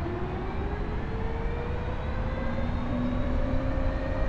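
Fiido Q1S electric scooter's stock motor whining as it accelerates toward top speed, its pitch rising slowly and steadily, with wind rumbling on the microphone.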